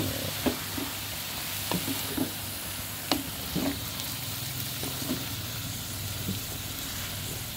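Chopped long beans and fried tempe sizzling in a metal wok while a wooden spatula stirs them, with scattered scrapes and taps of the spatula against the pan and one sharper knock about three seconds in.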